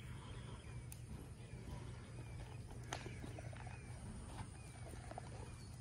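A horse's hooves striking soft arena dirt as it moves off, over a steady low hum. Short falling chirps, like a small bird's, repeat about every half second.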